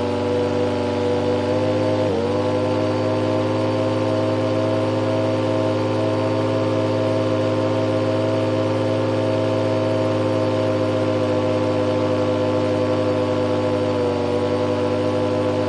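Supercharged turbine idling: a steady, loud, multi-toned whine. Its pitch dips sharply and recovers about two seconds in, and sags slightly near the end.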